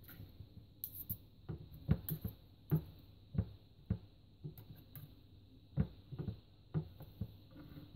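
Knife and fork clicking and scraping on a wooden cutting board as the skin is pared off a sunroot (Jerusalem artichoke): a string of short, sharp ticks at irregular intervals.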